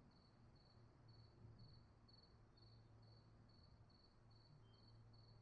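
Near silence: a faint low hum, with a faint high-pitched beep repeating evenly about twice a second.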